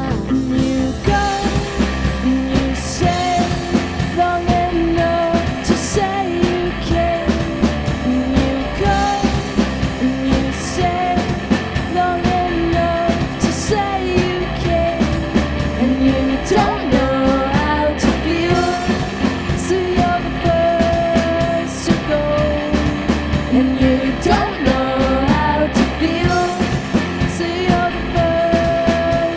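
Live studio performance of a pop-rock song: a sung lead melody over guitar, bass and drums with a steady beat.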